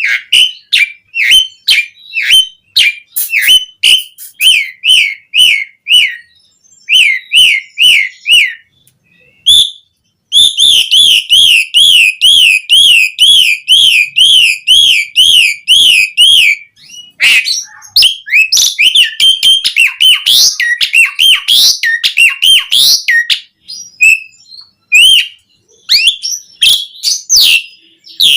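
Javan pied starling (jalak suren) singing loudly: a string of short downward-sweeping whistled notes, then a fast rolling warble held for several seconds, then a jumble of varied chattering notes. Sharp clicks are scattered between the notes.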